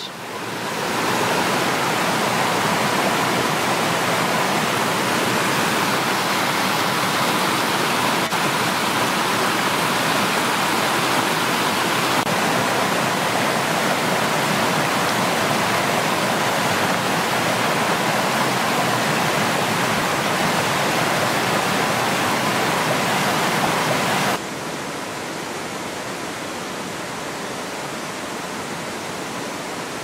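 Woodland stream cascading over rock ledges: a steady, full rush of falling water. About three-quarters of the way through it cuts abruptly to a quieter, softer rush.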